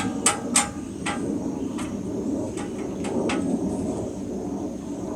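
Sharp metal knocks, about eight irregular strikes over the first three and a half seconds, as the rusted stock exhaust pipe of a pit bike is knocked and worked loose from its mount, over a low steady hum.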